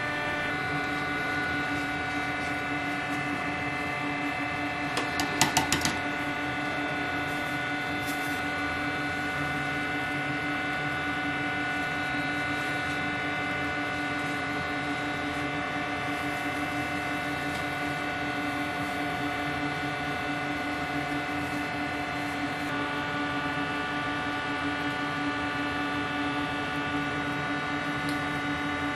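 A steady mechanical hum made of several held tones over a light hiss, unchanging throughout. About five seconds in, a short burst of sharp clatter is the loudest moment.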